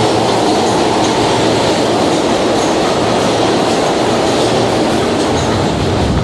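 New York City Subway train running close past the platform: a loud, steady rumble of steel wheels on the rails.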